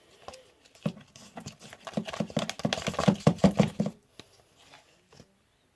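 Runny fabric-glue and laundry-detergent slime being mixed: a quick run of wet, sticky clicks and smacks, loudest from about two to four seconds in, with a few faint clicks around it.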